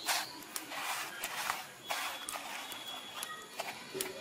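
Fingers pressing and turning a fish chop in a steel bowl of dry bread crumbs: an irregular run of soft crunchy rustles and small clicks as the crumbs are pressed on.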